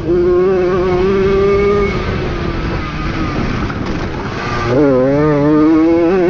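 Jawa 50 moped's two-stroke single-cylinder engine running at high revs, backing off about two seconds in, then revving up sharply again near the end.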